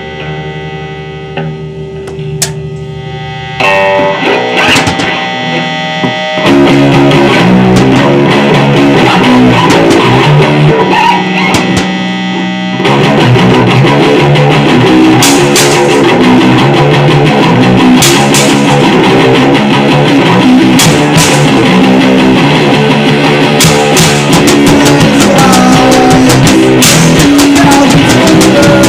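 Lo-fi garage noise-rock recording: a guitar holds droning notes, then the full band comes in loud about six seconds in, with drums and cymbal crashes joining from about halfway.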